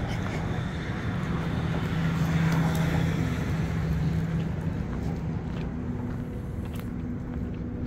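A car's engine going by close at hand on a town street, swelling a couple of seconds in and easing off, over a steady low traffic hum.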